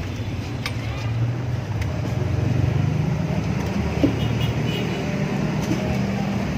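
Intercity coach's diesel engine idling at a roadside stop, a steady low hum, with street traffic passing.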